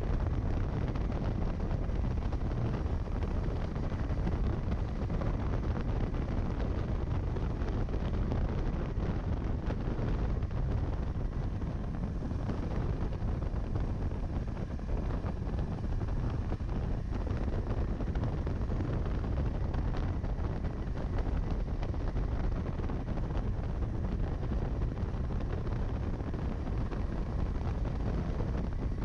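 Steady wind rush buffeting the microphone of a motorcycle riding at speed, with the KTM 390 Adventure X's single-cylinder engine running beneath it.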